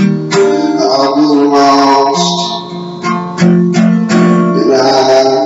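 Acoustic guitar strummed steadily, the chord changing several times.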